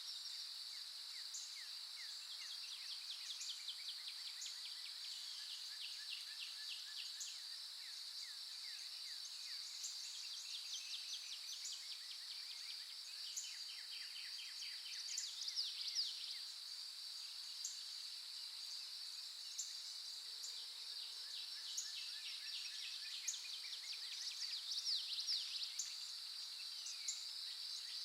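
Morning chorus of several songbirds: quick repeated chirps and rapid trills over a steady high-pitched hiss, with the loudest trills about halfway through and again near the end.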